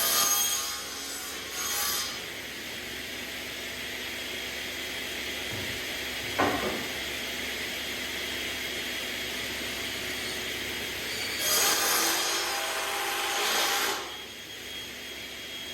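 Wood being cut with a power saw in short bursts, the longest about two and a half seconds, over a steady background hiss, with a single sharp knock about six and a half seconds in.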